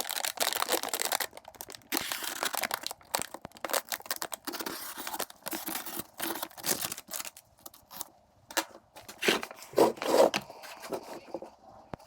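Paper wrapping being cut and torn off the top of a firework fountain: crinkling, tearing rustles in bursts for about the first six seconds, then scattered handling clicks and short rustles, the loudest a little before ten seconds in.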